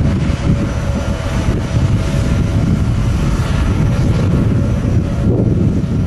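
Boeing 737-800 airliner's CFM56 jet engines rumbling as it rolls out after touching down, with a thin steady whine that fades about five seconds in. Gusty wind buffets the microphone.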